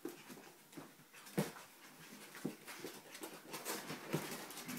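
Three-and-a-half-week-old Australian Shepherd puppies whimpering and panting as they scuffle about. Scattered light taps and scrapes run throughout, with a couple of sharper knocks about a second and a half in and near the end.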